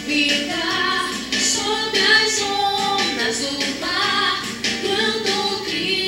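Music: a song sung by a woman's voice.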